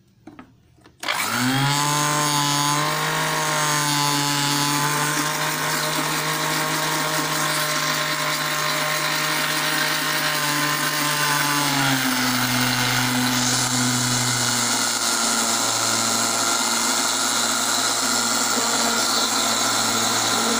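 Electric blender switched on about a second in, with a short rising whine as the motor spins up, then running steadily while it blends eggs, vinegar and oil into mayonnaise. About halfway through its pitch drops a step lower and stays there.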